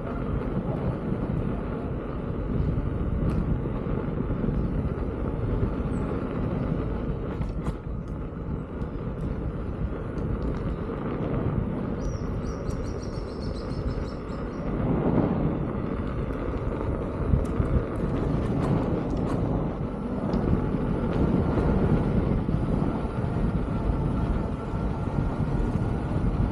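Steady wind rumble on the microphone with rolling tyre noise from an electric unicycle ride. A brief high warbling sound comes about halfway through.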